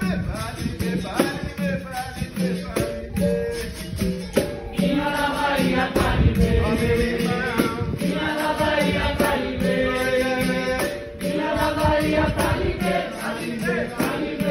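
Capoeira roda music: a group singing over berimbau bows and a pandeiro tambourine keeping a steady beat.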